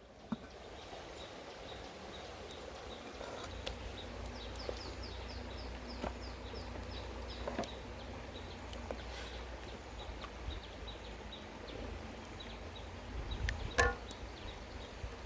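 Outdoor ambience with a steady low rumble, a bird chirping quickly and repeatedly for a few seconds mid-way, and scattered sharp clicks and knocks, the loudest near the end.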